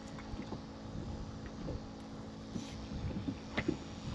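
Sounds of a small fishing boat on the water: a faint steady hum with scattered soft knocks and splashes, and light wind on the microphone.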